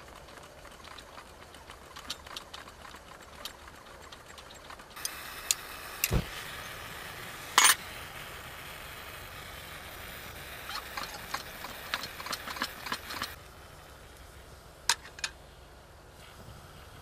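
Portable gas camping stove being lit: small metallic clicks and rattles as its pot support is handled, then the gas comes on with a steady hiss about five seconds in, two loud sharp clicks as it lights, and the burner hisses until it drops away about thirteen seconds in.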